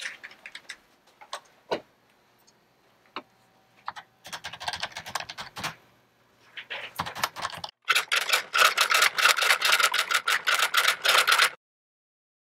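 Typing: scattered key clicks at first, then short runs of fast keystrokes, building near the end into a loud, dense run of rapid typing that cuts off abruptly.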